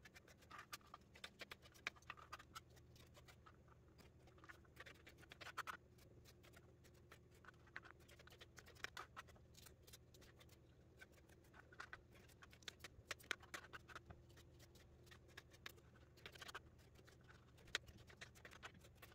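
Kitchen knife dicing small cucumbers on a plastic cutting board: faint, quick, uneven taps of the blade going through the cucumber onto the board, in runs separated by short pauses.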